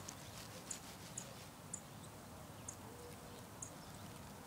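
Short, high-pitched bird chirps repeating irregularly, roughly one every half second to a second, over faint background hiss.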